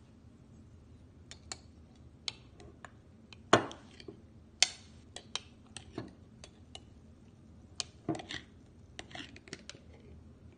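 Metal spoon clinking and scraping against a glass jar while scooping out honey-soaked lemon slices: irregular light clicks and taps, with the sharpest knocks about three and a half and four and a half seconds in.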